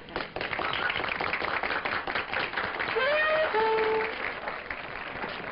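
Crowd applauding and cheering, with one voice calling out about three seconds in.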